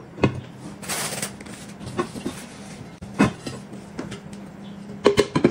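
Metal dome dish cover and plates knocking and clattering on a wooden table as the cover is set over a plate: a few separate knocks with a brief scrape about a second in, and a quick cluster of clinks with a short metallic ring near the end.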